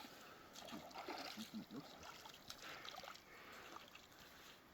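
Faint trickling and gurgling of a shallow mountain stream, with a few small splashes.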